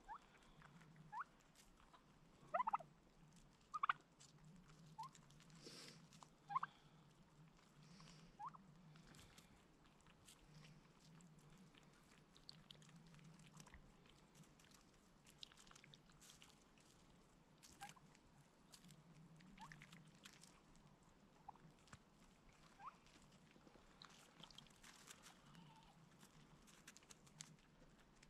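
Turkeys calling: faint, short, sliding calls at irregular intervals, bunched in the first several seconds and sparser afterwards.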